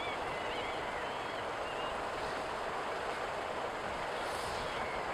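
Steady rushing roar of a Boeing 777's jet engines heard from a distance as the airliner climbs away. A few short high chirps sound in the first second or so.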